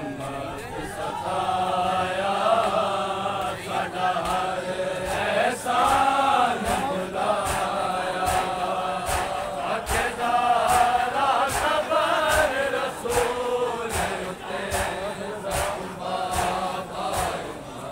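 Men's voices chanting a vain, a Shia mourning lament, in chorus, over sharp rhythmic slaps of hands on chests (matam), about two a second.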